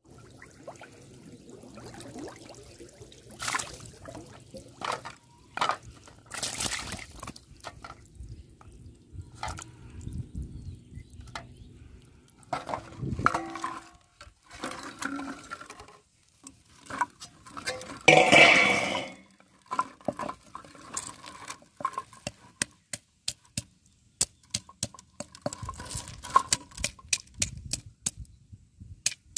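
Water splashing and plastic bottles knocking and clinking against a steel bowl, with one loud clatter about two-thirds of the way through. Near the end comes a run of short sharp taps, two or three a second, as a stone is knocked against a stone slab.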